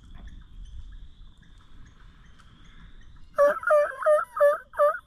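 Turkey calling: a run of about five loud hen-turkey yelps, evenly spaced at about three a second, each note breaking from a higher to a lower pitch. The run starts a little over three seconds in, after faint background.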